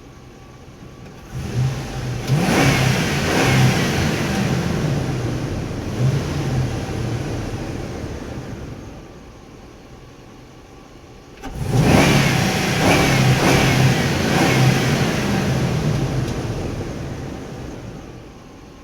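A truck engine revs twice in a parking garage: the first rev starts about a second in and dies away over several seconds, and the second comes in sharply about halfway through and fades out near the end.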